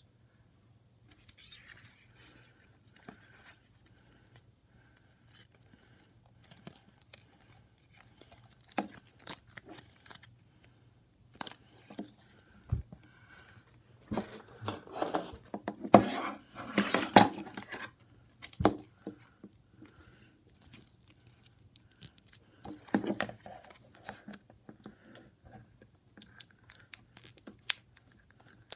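Crinkling and rustling of the shiny plastic wrapper on a toy surprise capsule as it is handled, loudest in a long stretch in the middle. Near the end, scissors snip into the wrapper to cut it open.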